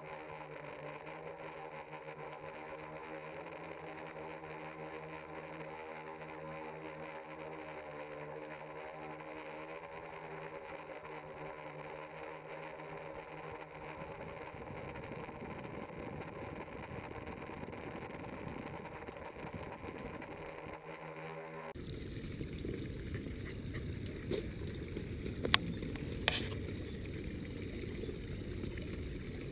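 Multicopter's electric motors and propellers humming steadily, heard from its onboard camera. About three quarters of the way in the hum cuts off suddenly and gives way to a low rushing noise with a few sharp clicks.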